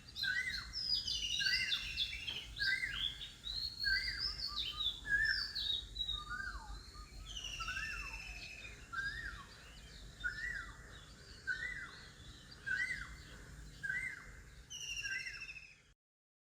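Several birds chirping and singing together, one repeating a short call about once a second while others add higher twittering; the sound cuts off abruptly near the end.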